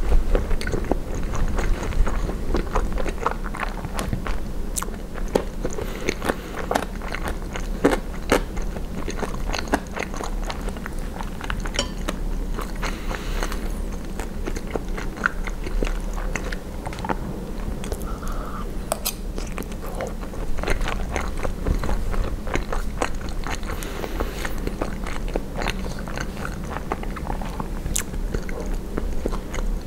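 A person chewing and biting poutine (fries with cheese curds and gravy), with many short, irregular mouth clicks over a steady low hum.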